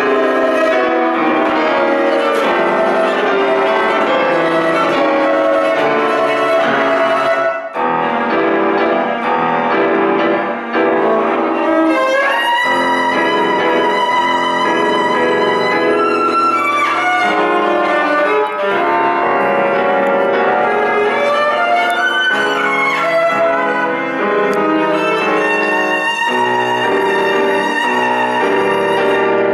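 Viola and piano playing a loud, dense passage, bowed viola lines over piano chords. About twelve seconds in the viola moves to high held notes with vibrato.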